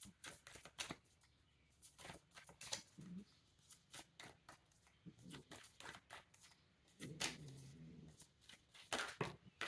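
Oracle or tarot cards being shuffled and handled: scattered soft card flicks and rustles, with a faint low murmur of voice about seven seconds in.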